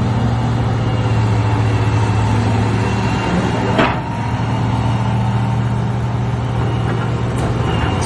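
Tracked hydraulic excavator's diesel engine running steadily with a low hum as the machine swings its boom, and a single sharp clank about four seconds in.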